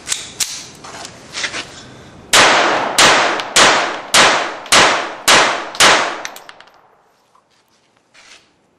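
MAB Model D .32 ACP semi-automatic pistol fired seven times in quick succession, about half a second between shots, each shot followed by a short ringing tail. A few fainter bangs come first.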